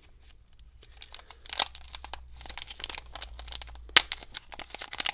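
Packaging being handled and opened: irregular crinkling and crackling of wrapping, with a sharper crackle about four seconds in.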